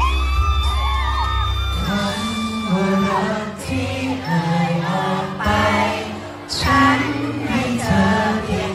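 Pop song over a hall PA: a man singing into a handheld microphone over a backing track with a steady bass line. The singing comes in about two seconds in.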